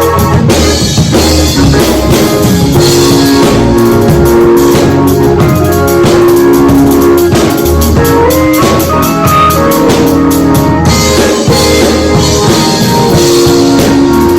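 Band music with a drum kit keeping a beat under held keyboard chords.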